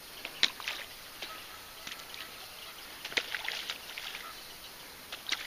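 Small water splashes and ticks around a small boat, irregular and scattered over a quiet background, with a few sharper ones standing out.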